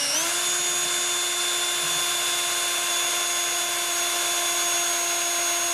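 Cordless drill with a 1/8-inch bit running continuously as it bores into a stainless steel band. The motor whine dips slightly in pitch near the start, then holds steady.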